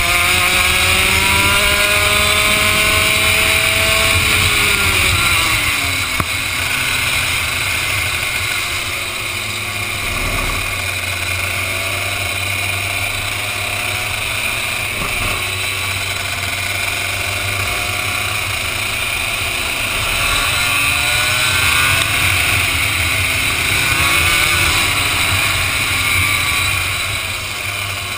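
Racing kart's Vortex ROK two-stroke engine heard from the driver's helmet camera, rising in pitch under acceleration for the first few seconds and dropping off about five seconds in. It runs quieter through the middle, then climbs again in the last third.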